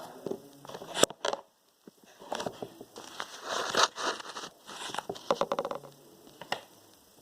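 Slime being handled and worked by hand, giving irregular crackles and scratchy rustles, with a sharp click about a second in and a quick run of clicks a little after five seconds in.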